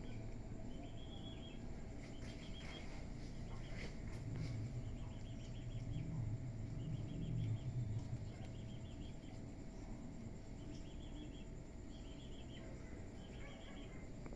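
Cricket chirping in short pulsed trains, roughly one every second, over a low background rumble that swells for a few seconds in the middle.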